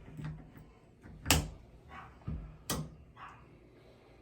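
Two sharp knocks about a second and a half apart, amid faint handling noise.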